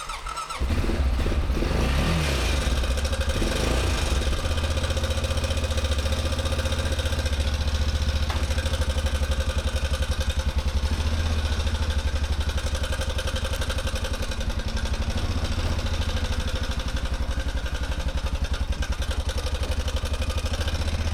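Honda Rincon 650 ATV's single-cylinder four-stroke engine catching about half a second in after cranking, then running at a steady idle.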